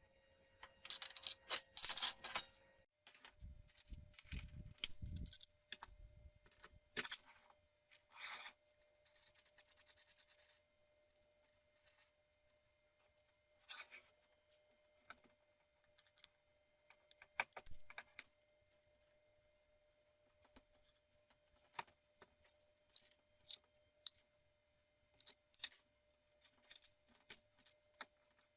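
Small metal parts being handled: irregular clinks, taps and short scrapes of metal on metal, some in quick clusters.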